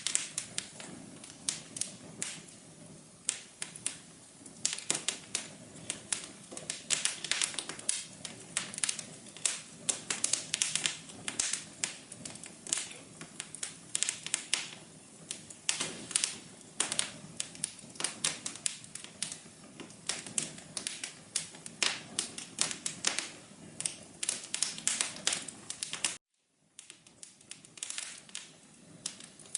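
Wood fire in a fireplace crackling, with dense, irregular pops and snaps over a low hiss. The sound drops out to silence for a moment near the end, then the crackling resumes.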